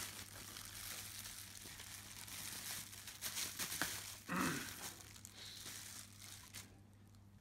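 Plastic bubble wrap crinkling and rustling as a camera is pulled out of it by hand. The rustling stops after about six and a half seconds.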